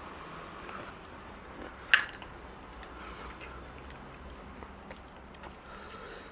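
Close-up mouth sounds of someone chewing a mouthful of food, with faint wet ticks and one sharp click about two seconds in.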